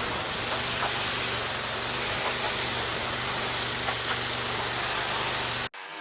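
Ryobi pressure washer running, its water jet hissing steadily against the deck boards over a steady engine hum. Cuts off suddenly near the end.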